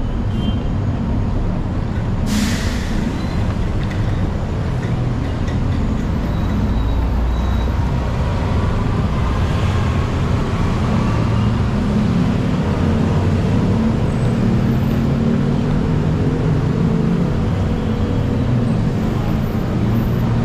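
Busy city road traffic with heavy vehicles' engines running steadily, and a short sharp hiss about two seconds in.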